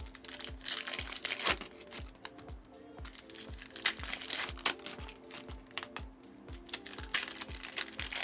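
Foil trading-card packs crinkling and tearing as they are opened and handled, in short irregular rustles, over background music with a steady beat of about two and a half thumps a second.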